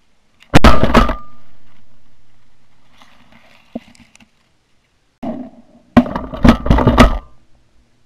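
Shotgun blasts heard from a barrel-mounted camera. One shot comes about half a second in and dies away over a few seconds, and a quick string of several more blasts follows near the end.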